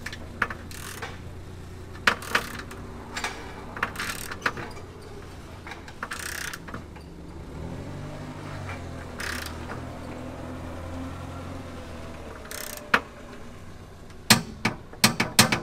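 Torque wrench ratchet clicking in short runs as hitch bolts are pulled up to torque, with a quick flurry of clicks near the end. A steady low hum runs underneath.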